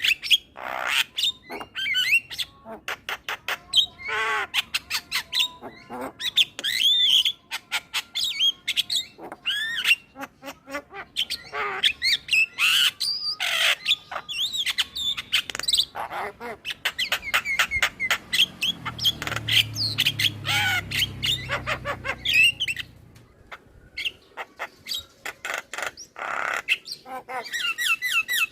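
Male Javan myna singing a long, fast, chattering song of clicks, squawks and whistles. A low rumble sits underneath for a few seconds past the middle.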